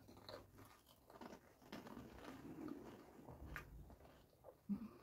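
Faint crunching and chewing as two people eat crisp, hollow fried pani puri (puchka) shells, each filled with spiced water and eaten whole.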